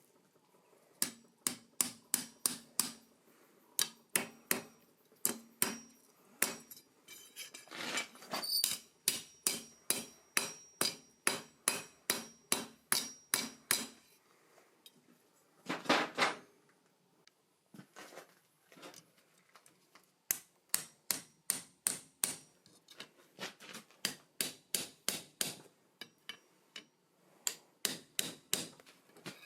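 Blacksmith's hammer striking hot steel on an anvil in runs of blows, about two to three a second, with short pauses and a faint ring after each blow. About halfway through there is a brief noisy burst.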